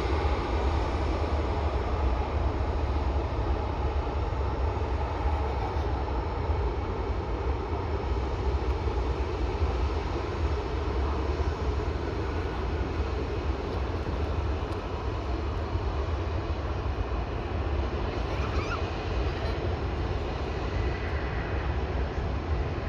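Jet airliner engines running, a continuous rumble and rush of noise that holds nearly steady.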